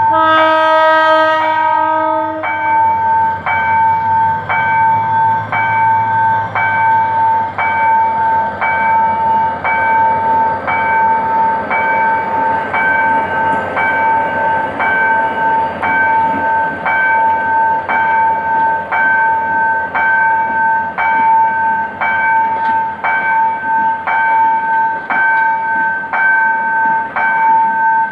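Level-crossing bell ringing steadily at a bit more than one strike a second, with a GM GT22CW-2 diesel locomotive sounding its horn for about two and a half seconds at the start while its engine rumbles past, then fades, leaving the passenger coaches rolling across the crossing.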